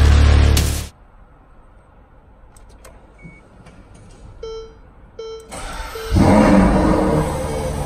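Music cuts off about a second in, followed by a few faint clicks and three short electronic beeps. Then the Ferrari 812 Superfast's naturally aspirated 6.5-litre V12 cranks and fires, flaring loudly on start-up and easing back toward a high idle.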